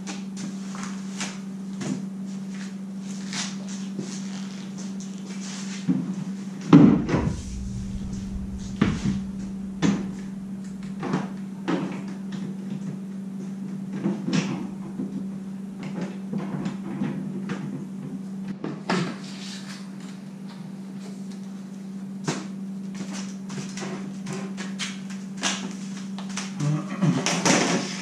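Hollow knocks and clatters of PVC pipe being handled, bumped and set down, at irregular times, the loudest a heavy thump about seven seconds in, over a steady low hum.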